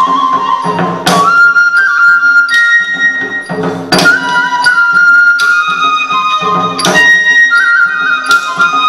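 Tripuri folk music for the Hojagiri dance: a flute plays a melody of long held notes, with sharp percussion strikes every one to three seconds.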